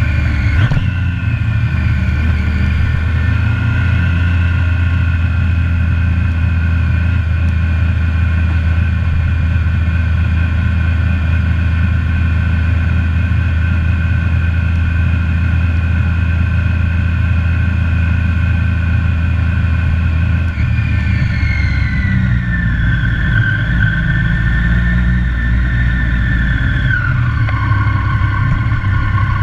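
Triumph sport motorcycle engine heard from on board, running at a steady low road speed along the pit lane. The engine note drops twice, about two-thirds of the way through and again near the end, as the bike slows.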